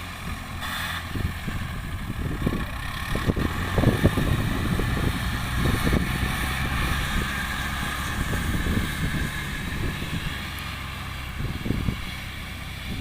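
Rice combine harvester's diesel engine running steadily under load, with a steady mechanical whine over it and an uneven low rumble.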